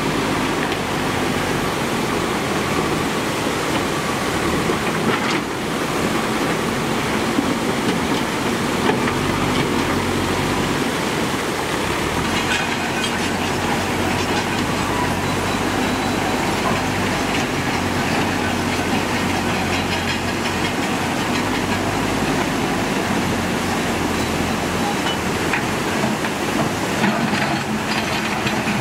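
Muddy floodwater rushing over rocks, with a JCB backhoe loader's diesel engine running steadily underneath. A few sharp knocks come through now and then.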